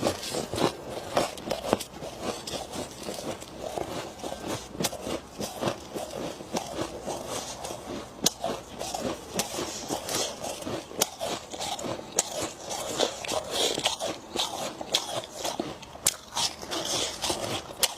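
A person biting and chewing soft freezer frost close to the microphone: a run of irregular, crisp crunches, several a second.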